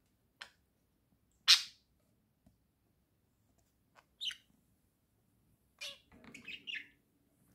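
Budgerigars calling: a few separate short, sharp chirps, the loudest about a second and a half in, then a quick run of warbling chatter near the end.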